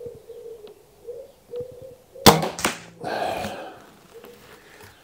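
A Weihrauch HW99S .22 break-barrel spring air rifle fires about two seconds in: a single sharp crack, followed less than half a second later by a second sharp knock, then a brief rustle as the rifle is handled.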